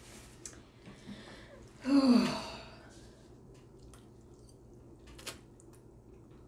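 A short, breathy vocal sound falling in pitch about two seconds in, then faint clicks and mouth noises of a fork and slurped spaghetti as eating begins.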